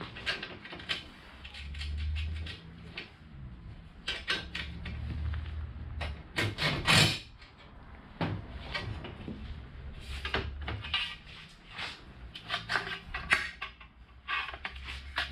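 Aluminium angle profiles knocked and clattered against a workbench while being handled: a run of irregular knocks, with the loudest clatter about seven seconds in.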